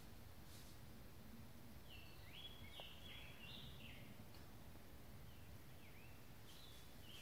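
A songbird singing faintly in woodland: a quick phrase of short, high notes about two seconds in, then a couple more brief notes near the end, over a quiet steady background hiss.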